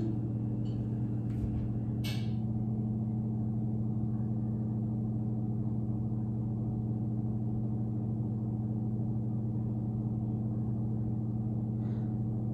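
A steady low hum made of a few held tones, unchanged throughout, with a few faint clicks in the first couple of seconds.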